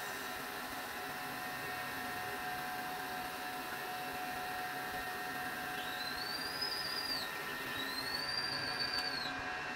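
Crankshaft grinding machine running with a steady whine as it grinds a Massey Ferguson tractor crankshaft. About six seconds in come two high whistling tones, each rising and then falling over about a second and a half.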